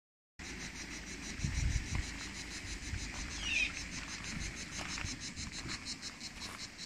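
Insects chirping in a fast, even pulse, with a short higher chirp about halfway through.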